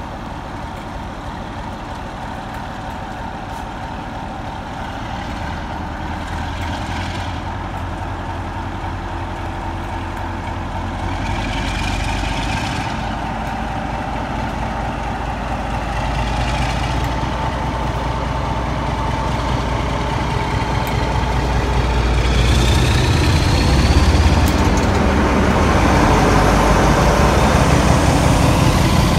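Class 47 diesel locomotives, with their Sulzer twelve-cylinder engines, pulling away under power. The deep engine rumble grows steadily louder as the lead locomotive draws past, and a rising high whistle comes in about two-thirds of the way through.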